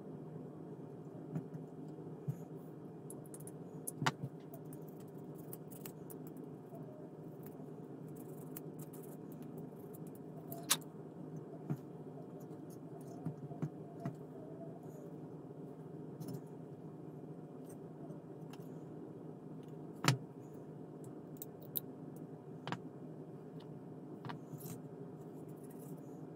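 Scattered small clicks and taps of plastic model-kit parts being handled and fitted together, over a steady low hum. The sharpest clicks come about four, eleven and twenty seconds in.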